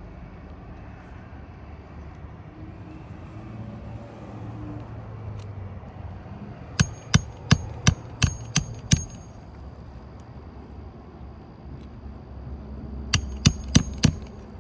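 Hammer blows with a metallic ring during a roof shingle repair. There is a quick run of about seven sharp strikes, roughly three a second, about seven seconds in, then four more near the end, over a steady low background hum.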